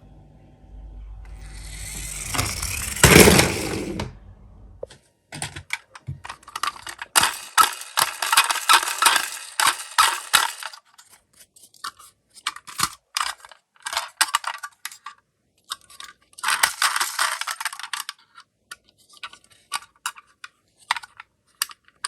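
Die-cast toy minicars clinking and clattering against each other and their box, in dense runs about five to eleven seconds in and again near the end, with scattered single clicks between. Before that, a rising noise builds to a loud hit about three seconds in.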